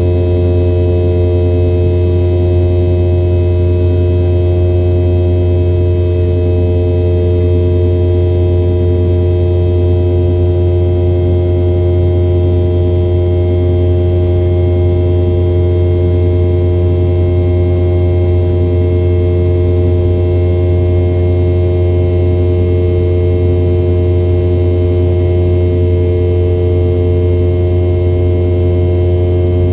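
Steady drone of a Boeing 717-200 airliner: a loud, deep hum with several steady tones above it, unchanging throughout.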